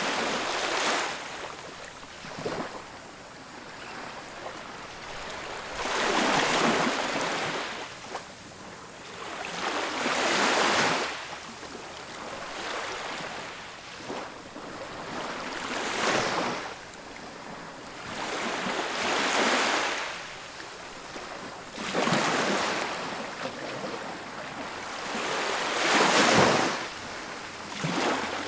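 Ocean surf on a beach: waves breaking and washing up the shore, each surge swelling and falling away, about one every four seconds.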